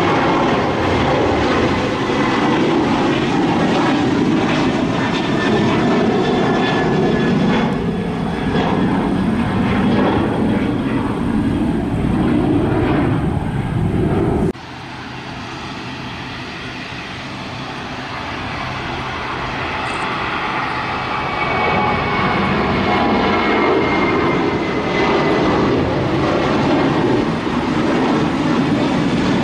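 Two Boeing 737-800s, each on CFM56 turbofans, climbing out at takeoff thrust. The first is a steady jet roar with a high whine gliding slowly down in pitch. About halfway through it cuts off abruptly, and the second airliner's roar comes in quieter and builds steadily back up.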